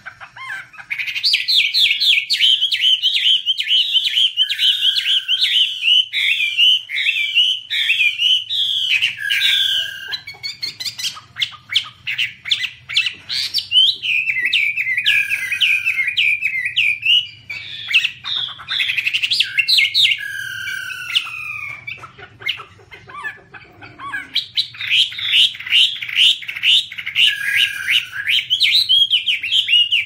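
Chinese hwamei (Garrulax canorus) singing a loud, fast, varied song of rapid whistled notes and phrases. It breaks off for a couple of seconds about three-quarters of the way through, then starts again.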